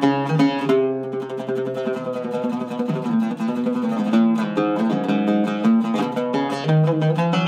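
Zeryab Iraqi-style oud with a cedar top and a floating bridge, played with a plectrum: a melodic phrase of single plucked notes, with a stretch of fast tremolo picking from about a second in to about three seconds in.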